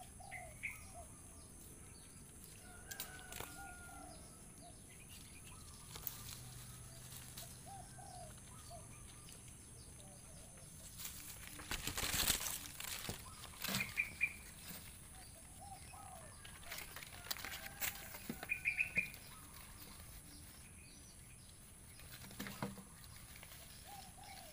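Short chirping calls, repeated every second or two, over a steady thin high tone, with a burst of leaves rustling close by about halfway through and a few light knocks.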